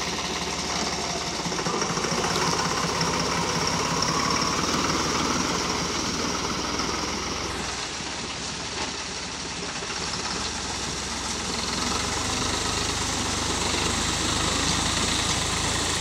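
New Holland 3630 tractor's three-cylinder diesel engine running with a steady knocking beat as it drives through shallow water, the tyres splashing and churning the stream.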